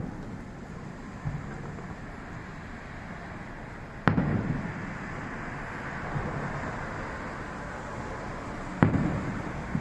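Fireworks bursting: two sharp booms about four and a half seconds apart, each trailing off in a rolling echo, with fainter pops between.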